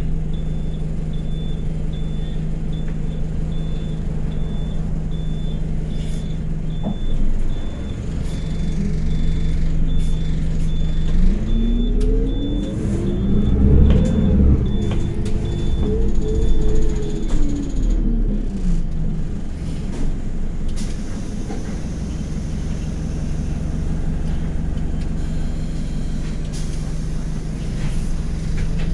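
Anadolu Isuzu Citibus engine heard from inside the bus, idling steadily with a repeated high beep from the dashboard. About eleven seconds in, the engine revs up and then falls back as the bus pulls away, and it then settles into steady running.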